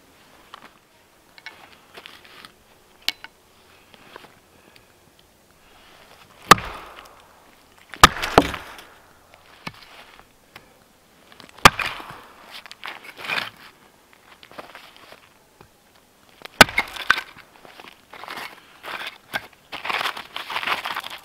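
Vintage Iltis ox head axe on a 19-inch handle splitting small firewood rounds: four sharp chops a few seconds apart, each with the crackle of the wood splitting. Crunching and shuffling of split pieces and snow being handled between the blows.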